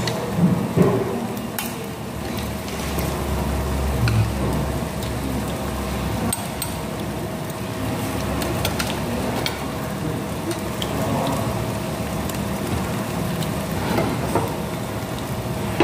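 Meat sizzling steadily on a hot grill pan, with a few light clicks of tongs and utensils.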